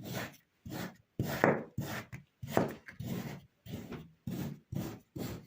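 Kinetic sand being cut: about ten short, gritty slicing strokes, roughly two a second, separated by brief gaps, the loudest two near the middle.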